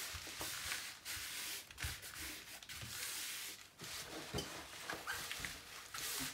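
Hands rubbing and pressing over the release paper of a diamond-painting canvas, smoothing it flat: a dry rustling, scraping rub, with a few soft bumps as the palms press down.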